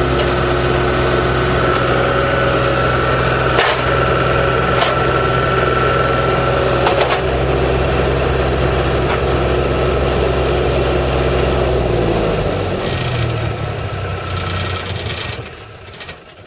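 John Deere 240 skid steer loader's diesel engine running steadily, with a few sharp knocks; about twelve seconds in the engine winds down and stops.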